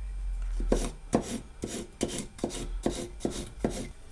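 Chef's knife slicing a red kapia pepper into julienne strips on a bamboo cutting board: about eight crisp cuts at an even pace, roughly two a second, each blade stroke tapping the wood.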